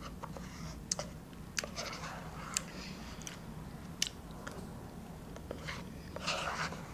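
Close-miked chewing and mouth sounds of a person eating, with scattered sharp wet clicks of the lips and tongue.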